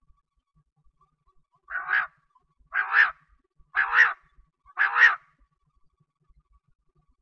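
Quail (bater) calling: four short calls about a second apart, each a quick two-part note.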